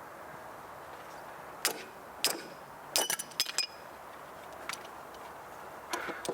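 Sharp metallic clinks and knocks of hand tools against the lawnmower blade and deck: single knocks a second and a half and two seconds in, a quick run of clinks around three seconds, and a couple more near the end.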